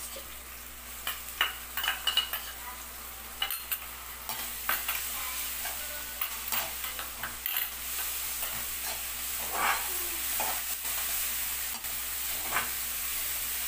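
Onions, green chillies and curry leaves sizzling in oil in a kadai, with ginger-garlic paste just added, while a spatula stirs and scrapes against the pan, giving sharp clinks in the first few seconds.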